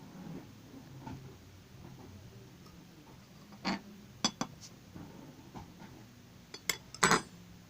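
Butter slime being rolled into a ball by hand, with soft squishing and a few sharp clicks and clinks, the loudest a cluster near the end.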